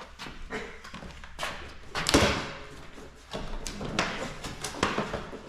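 A string of irregular knocks, taps and thuds, the loudest about two seconds in.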